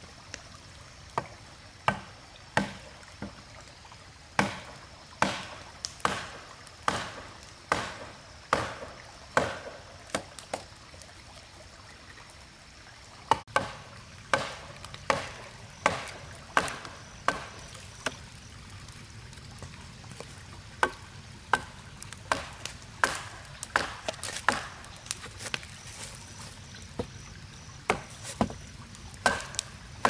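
Firewood being chopped: sharp blade strikes on wood at a steady pace of a little more than one a second, pausing briefly about ten seconds in, then carrying on.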